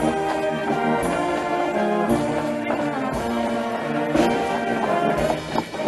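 Bavarian brass band playing a folk dance tune, held brass chords changing about once a second over a steady beat.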